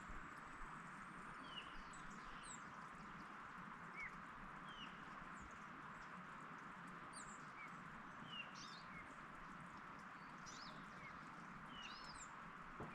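Wild birds chirping and calling, short high chirps and quick slurred notes every second or so, over a faint steady background hiss.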